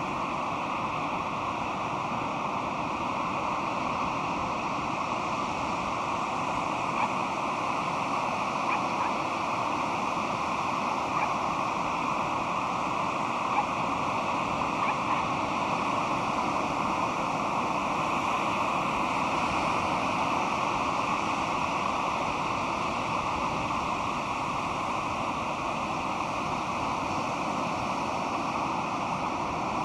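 Pacific Ocean surf washing steadily on a sandy beach, a continuous rushing hiss with no distinct breaking crest. A few faint, brief ticks sound in the middle stretch.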